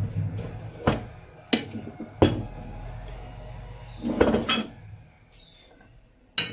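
Metal spoon scraping and knocking in a metal tin, giving a few sharp clinks about a second apart, then a short cluster of knocks and scrapes against the pan about four seconds in, with one more clink near the end.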